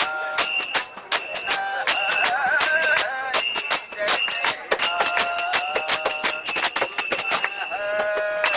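Commuters singing a devotional song together to jingling hand percussion, which strikes a fast, even beat of about three to four strokes a second under the wavering voices.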